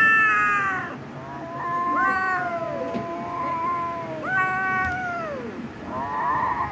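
Young cats meowing and yowling during a rough play-fight: a series of long, drawn-out meows, each falling in pitch at its end, with a shorter wavering call near the end.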